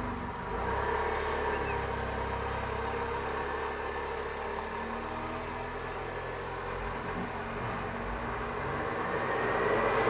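Engines of an Ashok Leyland lorry and an auto-rickshaw running steadily. The sound grows louder near the end as the lorry comes closer.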